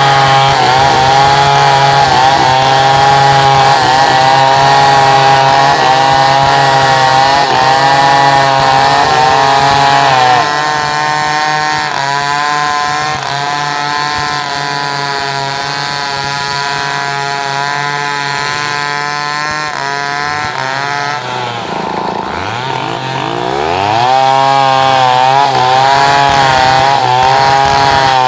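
Chainsaw engine running at high revs, its pitch wavering as it saws through wood. About ten seconds in it gets quieter; a little past twenty seconds the engine drops low and then revs back up.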